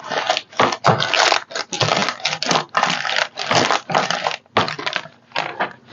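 Paper crinkling and rustling in many short, irregular bursts as a decoupage paper napkin is pressed and smoothed down by hand.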